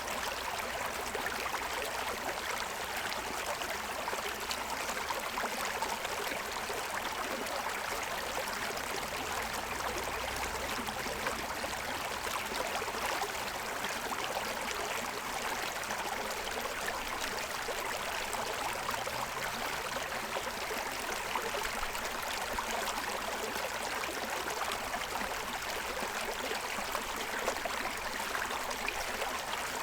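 Shallow forest stream running over the stones of its bed: a steady babble of water.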